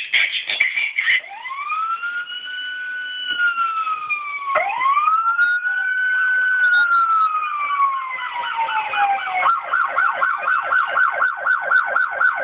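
Electronic police siren from a 1/18 diecast police car's built-in sound module, played through its tiny speaker. After a moment of quick pulsed tones it gives two slow wails, each rising and then falling slowly, and about three-quarters of the way through it switches to a fast yelp of about five rises a second.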